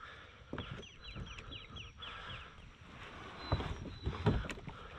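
A bird calls a fast run of short descending chirps, then two dull knocks sound on a plastic kayak hull as a person climbs aboard and shoves off from the shore. The knocks are the loudest part.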